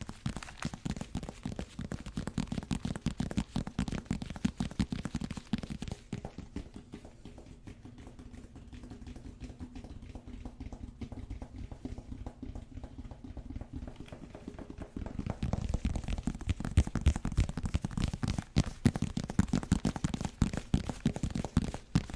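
ASMR tapping and scratching on a case: a fast, dense stream of small taps and rubs, quieter through the middle and busier again in the last third.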